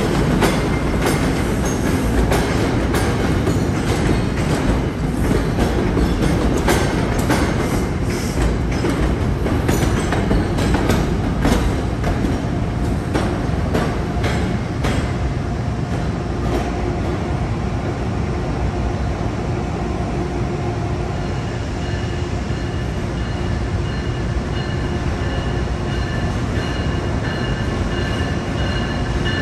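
Passenger train rolling along the station tracks, wheels clicking over rail joints and switches for the first half. The clicks then die away and a steady whine of several held tones remains under the low rumble.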